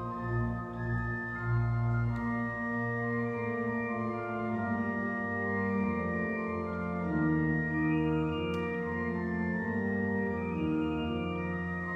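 Church organ playing slow, sustained chords that change every second or two over a held low bass line.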